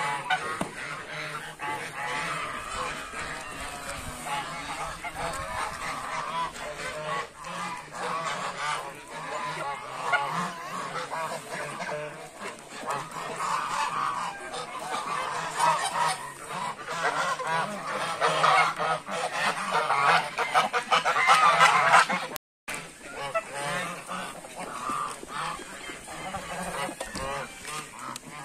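A flock of domestic geese honking continuously, many calls overlapping, growing busier and louder a few seconds before the sound briefly cuts out about three-quarters of the way through.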